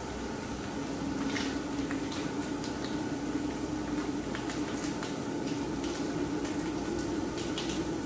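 Steady hiss of a Coleman propane camp stove with food frying in a skillet on it, and a utensil clicking and scraping against the pan every second or so as the food is stirred.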